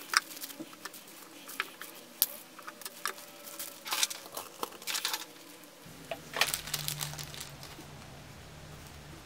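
Thin plastic bags crinkling and crackling in irregular bursts as aquarium plants are pulled out of them. About six seconds in the crinkling mostly stops and a steady low hum comes in.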